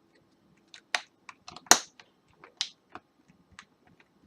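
A phone's back cover being pressed into place: a series of irregular sharp clicks and snaps, the loudest one a little before halfway.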